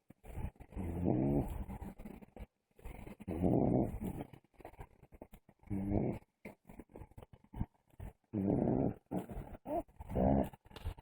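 Snoring: five snores in a row, each about a second long, coming every two to three seconds.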